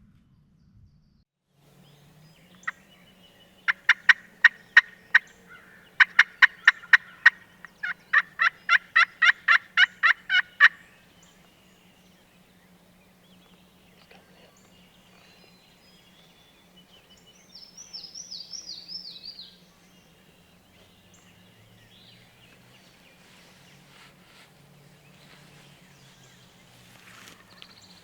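Turkey yelping: a long run of loud, sharp, evenly spaced yelps that speeds up toward the end. About seven seconds after it stops comes a short, softer run of high falling notes.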